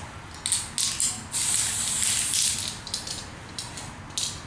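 Spray paint hissing from a nozzle in several short bursts, with one longer burst of about a second and a half near the middle.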